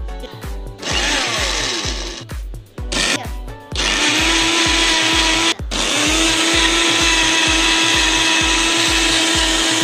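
Electric blender motor switched on in two short bursts, then run continuously with a steady whine. It cuts out briefly about halfway through, runs on, and starts to wind down at the end. Background music with a steady beat plays underneath.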